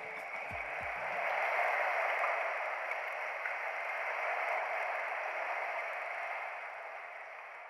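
Steady hissing wash of sea water moving through a sea cave, muffled, with no distinct splashes, slowly fading toward the end.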